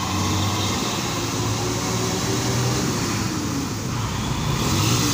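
Bus engine running with a steady low hum as the bus drives along, together with road noise.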